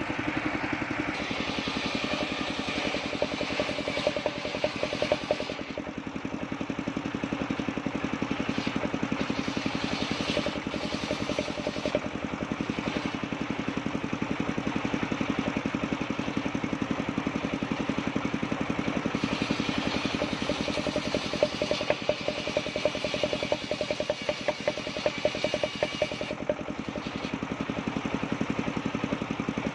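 Home-built engine-driven circular sawbench running steadily while its large blade rips waru wood into boards. The bright cutting noise swells twice over the engine's steady drone: for about four seconds near the start and for about seven seconds in the second half.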